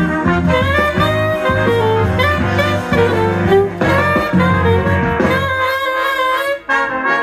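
Alto saxophone playing a funk melody over a band accompaniment with bass and brass; the bass drops out briefly past the middle.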